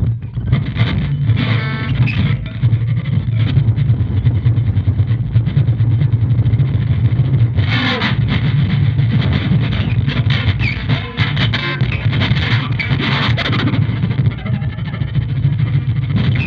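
Electric guitar played as improvised noise music through one effects pedal and an amp: a dense, continuous low drone with scraping, rattling noise and short crackles over it, swelling into a louder noisy surge about eight seconds in.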